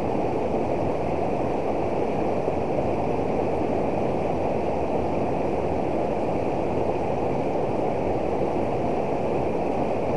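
Fast river water pouring over a small weir and rushing around rocks: a steady, even rush that does not change.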